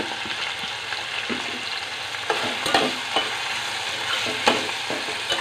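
Chopped vegetables frying in oil in a stainless steel pot, a steady sizzle, while a metal spatula stirs them, scraping and clinking against the pot several times.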